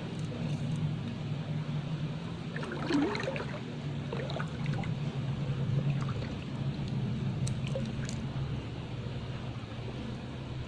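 Water trickling and gurgling over a steady low hum, with a short flurry of small splashes about three seconds in.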